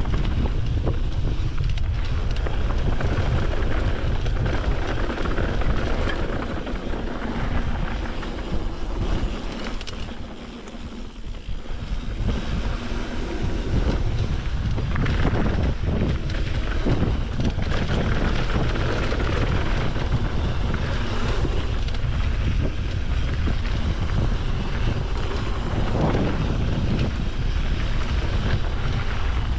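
Wind rushing over the microphone of a mountain bike ridden downhill, with tyre and trail noise and knocks as the bike goes over bumps. The rush drops off briefly about ten seconds in.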